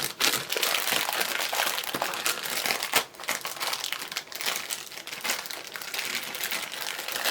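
Packaging of a Funko Mystery Mini figure crinkling in dense, continuous crackles as it is handled and unwrapped.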